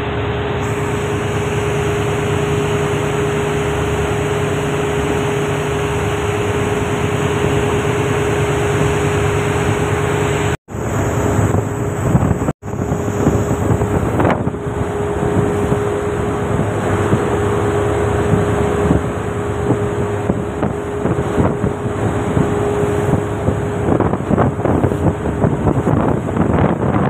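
Wind buffeting the microphone on the open deck of a moving ferry, over the ship's steady drone with a constant hum, which stops near the end. The sound cuts out for an instant twice around the middle.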